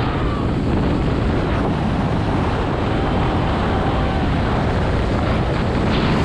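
Heavy wind buffeting the microphone of a Honda CRF150 dirt bike moving at road speed, with the bike's engine running underneath.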